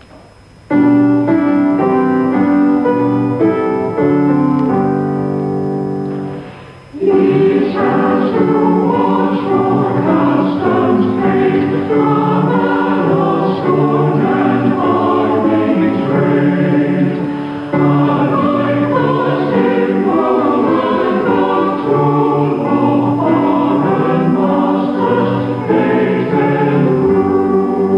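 A hymn sung by a large church choir, combined choirs with a choral society. It opens with about six seconds of held instrumental chords. The singing comes in about seven seconds in and carries on with accompaniment. The sound is that of a radio broadcast recorded off air onto cassette.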